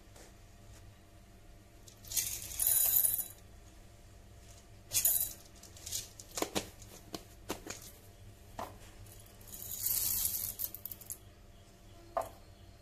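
Roasted coffee beans poured into a small ceramic bowl on a kitchen scale, clattering and rattling. There are two pours, one about two seconds in and one near ten seconds, each lasting about a second, with a few single beans clicking in between.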